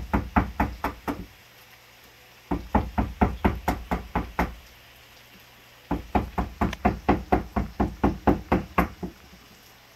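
Chef's knife chopping ginger on a cutting board. There are three runs of quick, even knocks, about six a second, with short pauses between them.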